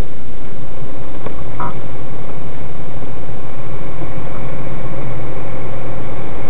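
Engine of the dashcam vehicle running as it drives slowly on a rough dirt road, heard from inside the cab, steady and loud, with a short rattle about a second and a half in.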